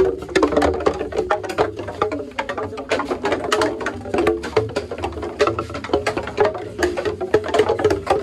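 Hanging hollow bamboo poles clattering against each other as they are pushed aside. It is a dense, irregular run of hollow wooden knocks, each with a short pitched ring, over a low steady hum.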